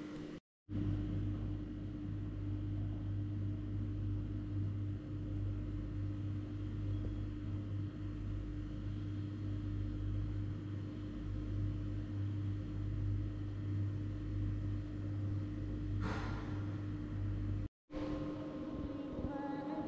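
Steady low mechanical hum with a constant tone, cutting out completely for a moment twice.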